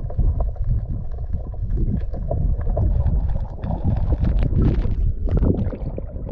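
Wind rumbling on the microphone over water sloshing and splashing around a small wooden outrigger boat. The splashing is busier for a second or so past the middle as the wooden paddle moves.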